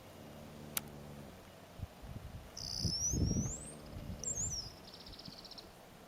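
Horse snoring: low, rough breaths about two, three and four seconds in, the one near three seconds the loudest. A small bird chirps in rising sweeps and trills in the background.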